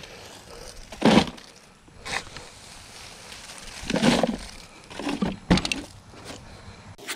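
Wood-chip and dry-leaf mulch crunching as it is dug from a pile with a long-handled tool and tossed into a plastic garden cart, in about four separate scoops; the loudest comes about a second in.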